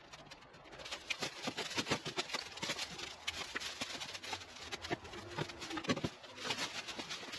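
Leafy climbing vines and twigs being torn down by hand: a dense, irregular run of rustling, crackling and snapping foliage.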